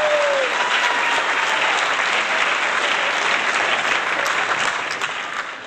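A crowd applauding, a dense steady clapping that eases down near the end.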